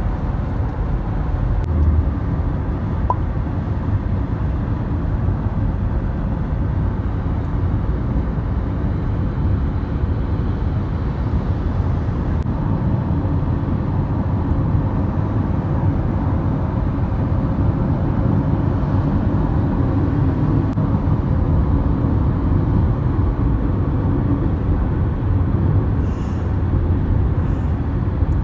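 Steady low rumble of a moving vehicle, with no clear changes.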